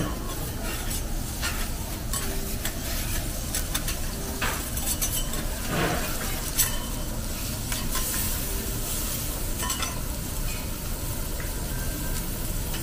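Lamb chops and steak sizzling on a steel teppanyaki griddle, with metal spatulas repeatedly scraping and tapping across the griddle's surface.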